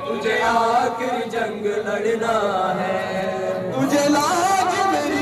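Urdu noha, a Shia mourning lament, chanted in a wavering, melismatic line; about four seconds in the chant rises to a higher, brighter phrase.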